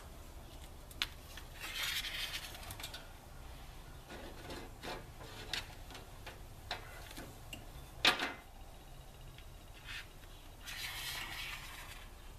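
Handling sounds as insulated wire is fed through a plastic lid ring: scattered small clicks and scraping rustles, with one sharper click about eight seconds in.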